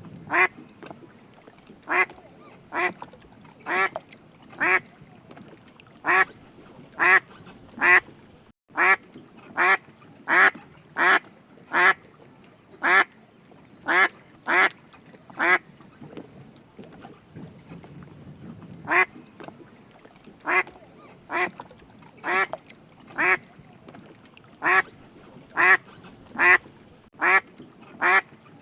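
Duck quacking over and over in short, separate quacks, about one to two a second, with a pause of a few seconds past the middle.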